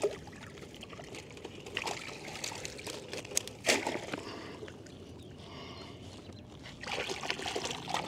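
Water trickling and splashing in short, irregular bursts, with a couple of sharp knocks a little past the middle.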